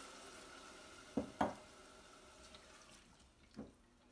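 Hot pot of oil-toasted rice sizzling, the hiss dying away as the added water quenches it. A spatula knocks against the pot twice about a second in and once more near the end.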